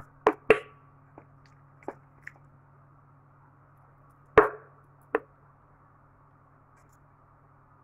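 Chunks of boiled cassava dropped one by one into an empty blender jar, landing with several short knocks against the jar and blades. The loudest knock comes about four and a half seconds in, over a steady low hum.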